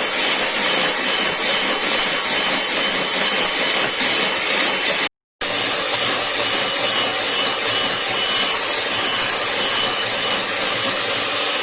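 Electric hand mixer running steadily at speed, its beaters whipping egg whites into meringue in a bowl. The sound cuts out for a moment about five seconds in.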